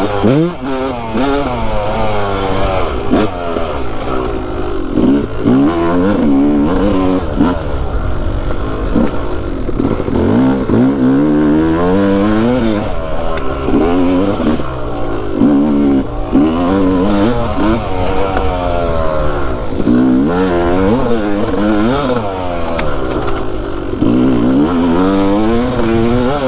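Yamaha YZ250 single-cylinder two-stroke dirt bike engine being ridden, its pitch climbing as it accelerates and dropping back, over and over.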